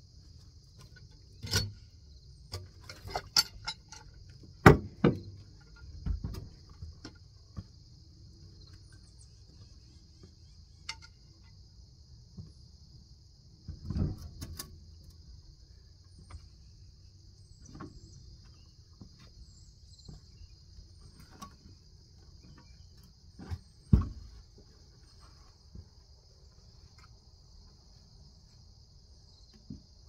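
Scattered heavy knocks and thumps of a pine log being rolled onto and shifted on the steel bed of a manual bandsaw sawmill, loudest a little under five seconds in and again around twenty-four seconds. Crickets trill steadily in the background.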